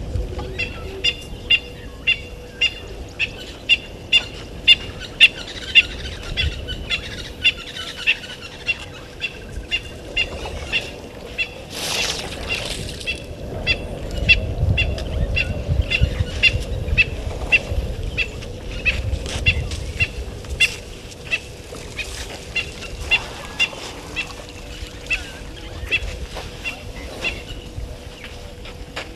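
A bird calling over and over in short, sharp, high notes, about two a second, with patches of low rumbling and a brief rushing noise about twelve seconds in.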